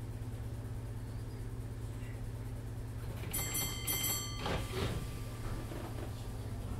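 Inside a British Rail Class 507 electric unit standing with its steady low electrical hum. About three seconds in come two short electronic door-warning beeps, followed by a brief rush of sound as the sliding doors move.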